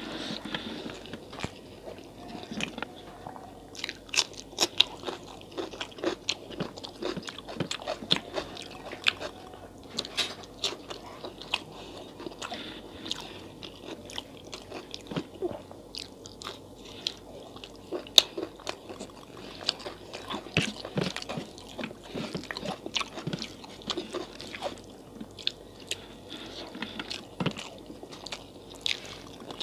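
Close-miked eating: chewing and biting through hand-mixed rice and fried pakoras, with many sharp, irregular crunches.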